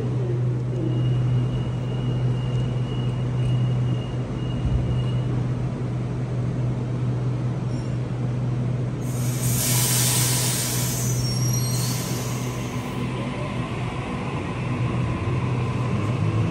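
Double-deck electric passenger train starting to pull out of an underground station, its motors and equipment giving a steady low hum. About nine seconds in a loud hiss of air lasts around three seconds, and then the motor whine begins to rise in pitch as the train gathers speed.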